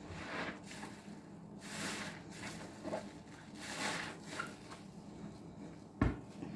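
Green sponges soaked in dish soap squeezed and pressed in a tub of thick lather, giving wet, foamy squeezing sounds in several swells. A single sharp thump about six seconds in, louder than the rest.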